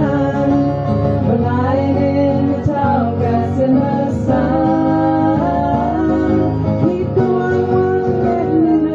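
Women singing a song together to acoustic guitar accompaniment, with long held notes.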